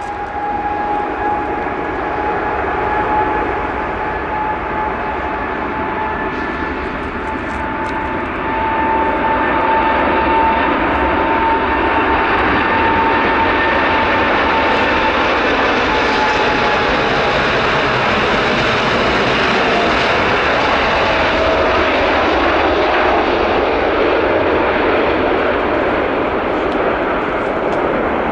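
Boeing 747's four jet engines at takeoff thrust during the takeoff roll and liftoff: a loud, steady jet noise with a high fan whine. The noise grows louder about eight seconds in, and the whine drops in pitch as the jet passes.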